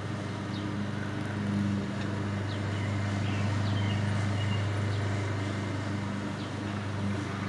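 Car engine idling with a steady low hum that swells slightly in the middle; a few faint short high chirps over it.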